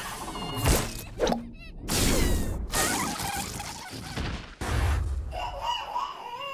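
Cartoon slapstick sound effects: a string of sudden hits and swishes with short whistling glides. From about five seconds in, background music with steady held notes takes over.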